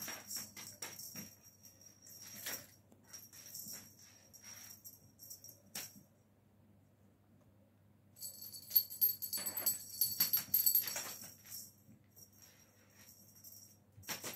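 Small bells on a cat toy jingling as the toy is shaken, in irregular bursts with pauses. The longest and loudest burst comes about two thirds of the way through.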